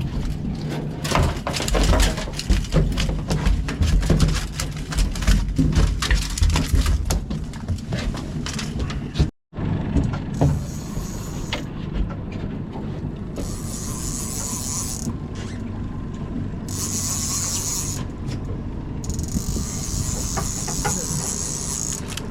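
Rapid ratcheting clicks of a fishing reel over the steady low hum of the boat's engine, lasting about nine seconds. After a sudden break, the engine runs on steadily with stretches of hiss.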